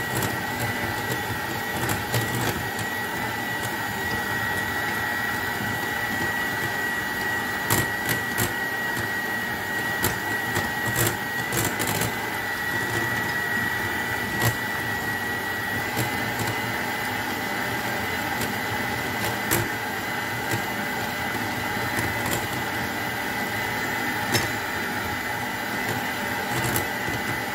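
Electric hand mixer running steadily, its twin beaters whisking egg yolks in a glass bowl while oil is added little by little, giving a steady high motor whine with occasional sharp clicks.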